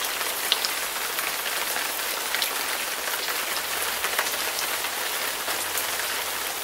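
Rain falling: a steady hiss with scattered small drop ticks.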